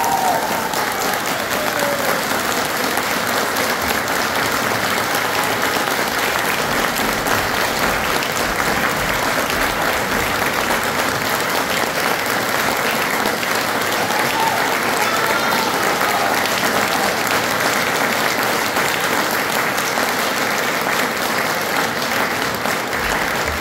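Audience applauding, a dense, steady clapping that holds at the same loudness throughout.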